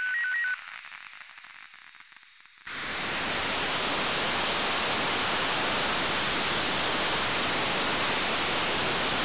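The last warbling SSTV tones from the satellite's FM downlink stop about half a second in. After two seconds of faint noise, loud, steady FM receiver hiss comes in and holds: the open-squelch noise of the software-defined radio as the LAPAN-A2 (IO-86) signal fades out at low elevation.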